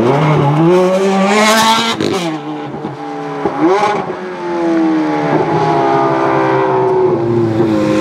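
Ferrari 430 Scuderia's 4.3-litre V8 accelerating hard, its pitch climbing over the first two seconds. After a quick rev blip about halfway through, the engine pulls away again at high revs, the pitch easing slightly downward.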